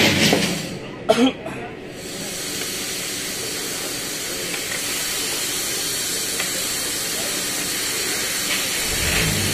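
A sharp click about a second in, then a steady hiss.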